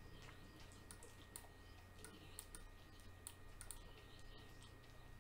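Faint, irregular clicking of a computer mouse and keyboard being worked, a few clicks a second at most, over a low steady hum.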